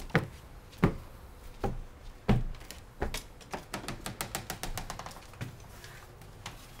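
Footsteps on wooden boards: firm steps about every 0.7 s, then a quicker run of lighter taps and clicks about halfway through.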